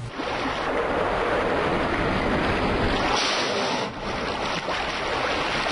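Steady rushing noise of wind buffeting the microphone over choppy open water, with waves washing. About three seconds in it turns briefly hissier, then dips for a moment.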